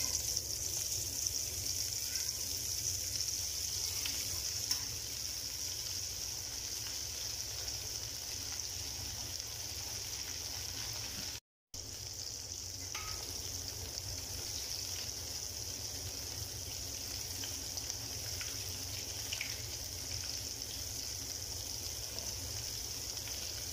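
Hot oil sizzling steadily as chickpea falafel balls deep-fry in a kadhai, with a brief break in the sound about halfway through.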